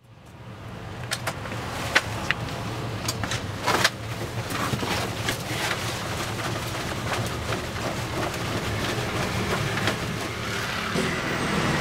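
A large cloth sheet rustling and flapping as it is pulled down and gathered by hand, with several sharp snaps in the first four seconds. Steady street traffic runs underneath and grows louder near the end.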